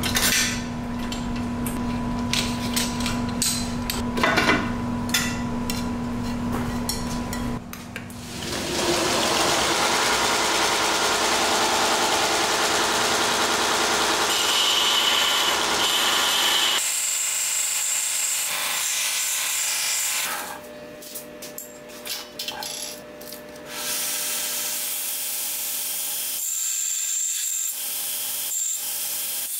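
Belt grinder running, with a small metal part held against the belt and ground in spells, the grinding noise dropping and coming back. Before that, for the first several seconds, a steady machine hum with scattered clicks.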